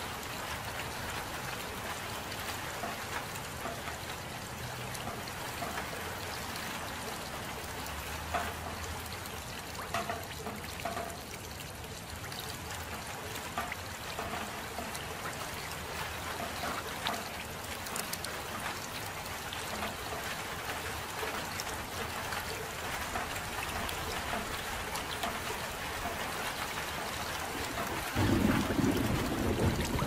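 Steady soft rainfall with dripping and trickling water. About two seconds before the end, a low rumble of thunder sets in and is the loudest sound.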